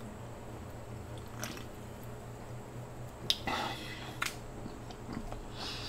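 Quiet gulping as a drink is swallowed straight from an aluminium can, then a sharp click and a short breathy rush a little past the middle, and another click as the can is lowered.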